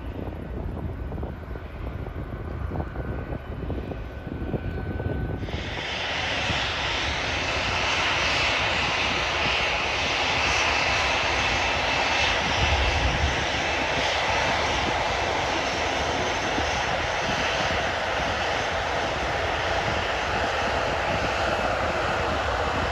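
Boeing 737 jet engines at taxi power: a steady whine over a low rumble as the airliner rolls past. It comes in abruptly about five seconds in; before that there is only a faint low rumble.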